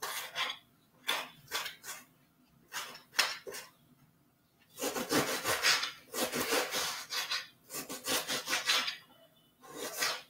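Kitchen knife slicing an onion on a glass chopping board: runs of quick cutting strokes with short pauses between them, the longest run about halfway through.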